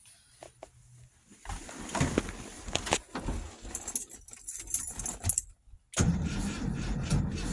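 Keys jangling and clinking as a key goes into the ignition, then about six seconds in the starter of a 1970 Volkswagen Beetle's air-cooled flat-four engine starts cranking steadily. The engine is hot, the condition in which it won't start.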